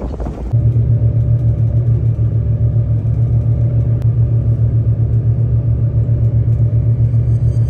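Boat engine running with a loud, low, pulsing rumble that starts abruptly about half a second in. Before it, wind is rushing over the microphone.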